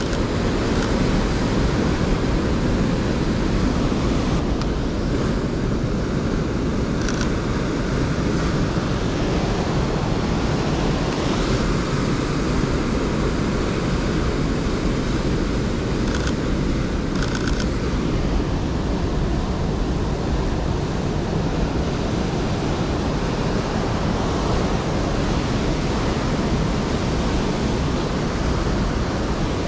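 Ocean surf breaking on a boulder shoreline: a steady, continuous rush of waves, with wind buffeting the microphone. A few faint clicks come through near the middle.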